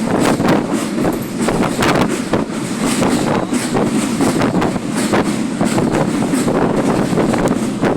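A passenger train running at speed, its wheels and track giving a steady rumble with short clacks a few times a second, and wind rushing over the microphone.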